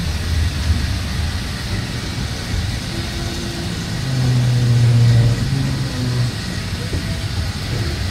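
Train running with a steady low rumble; about four seconds in a deep engine drone swells louder for a couple of seconds, then drops back.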